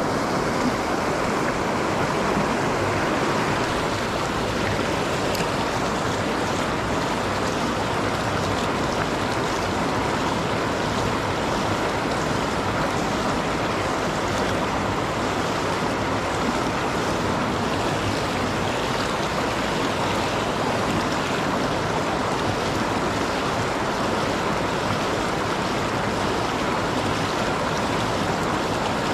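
River water rushing steadily over a low concrete weir and spilling down its face.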